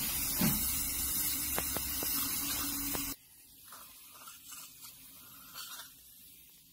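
Steady hiss with a faint low hum that cuts off suddenly about three seconds in, leaving only faint, scattered low sounds.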